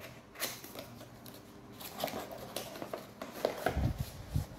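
Cardboard box opened by hand: scattered scrapes and clicks of the cardboard flaps and of a packaged earphone sliding out, with a few dull bumps near the end.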